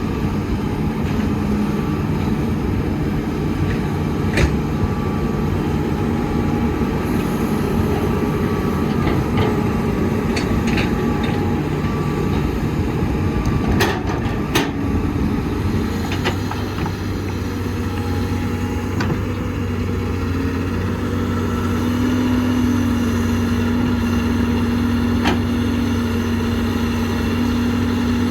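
Diesel engines of heavy construction machinery running steadily, with a few sharp metallic knocks, and the engine note changing about halfway through.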